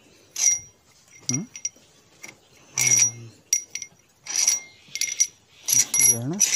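Steel engine pushrods clinking against each other and the cylinder head as they are handled and set into place: a string of bright metallic clicks, each ringing briefly at a high pitch. Brief voices in between.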